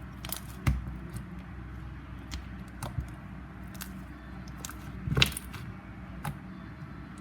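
Slime being handled and worked with tapioca pearls, making scattered sticky clicks and pops. The sharpest come just under a second in and a little after five seconds in.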